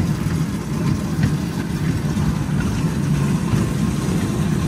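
Zamperla Rio Grande kiddie train rolling along its track: a steady low rumble from the train's drive and wheels.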